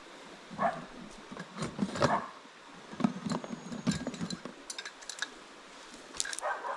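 Scattered clicks and light knocks, like objects being handled and set down, irregular and spread throughout.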